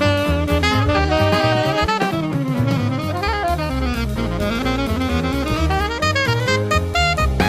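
Background music: an instrumental track with a drum beat and a wandering lead melody.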